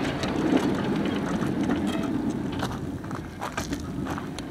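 Steel wheels of a 7.5-inch gauge miniature train rolling slowly along the track: a steady rumble with scattered irregular clicks and knocks.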